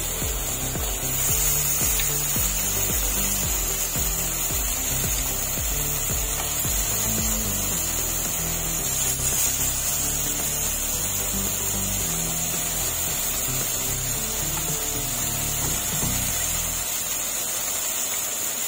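Besan-coated fish pieces sizzling in shallow oil in a frying pan, a steady hiss, at the second fry that crisps the outer layer. Background music with low bass notes plays under it and stops about seventeen seconds in.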